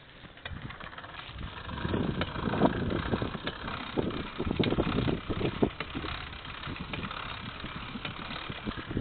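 Wind buffeting a phone's microphone, with handling rubs and knocks as the phone is carried on a moving bicycle. The rumble gets louder about two seconds in.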